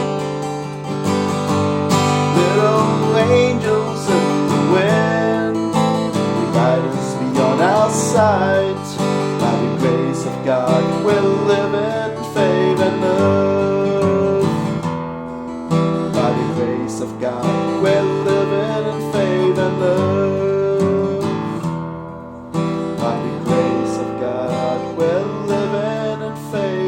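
Taylor 910 acoustic guitar playing an instrumental passage: strummed chords under a melody line with gliding, wavering notes, with a brief dip in loudness about 22 s in.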